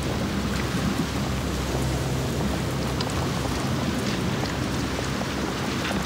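Loose volcanic ash and small pebbles pattering and trickling with scattered light ticks, over a low steady rumble.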